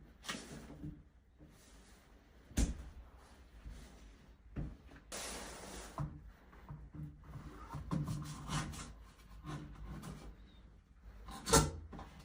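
Handling noise as shower valve parts are fitted back together: scattered knocks and rubbing, with a brief hiss-like scrape about five seconds in and the loudest sharp knock near the end.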